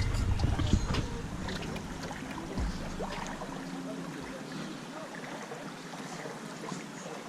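Steady, faint outdoor background noise with a low rumble and a few knocks over the first seconds, dying down to an even hiss.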